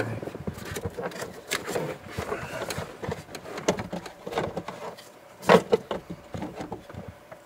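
Heater blower motor and its plastic fan cage being handled and pushed up into the plastic blower housing under the dash: irregular plastic clicks, scrapes and knocks, with a louder knock about five and a half seconds in.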